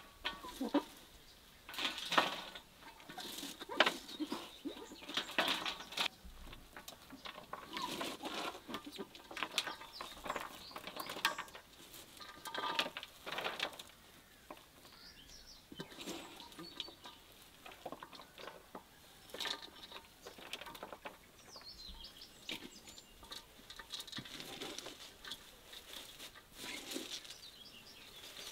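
Shredded cabbage and carrots being tossed and mixed by hand on a metal tray and in an enamel bowl: irregular crisp rustling that comes in handfuls every second or two.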